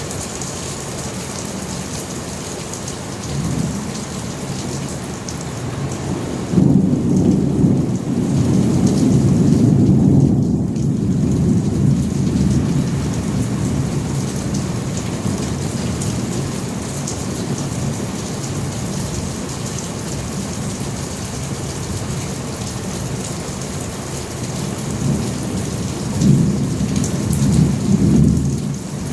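Steady rain with two rolls of thunder: a long low rumble starting about a quarter of the way in, and a shorter one near the end.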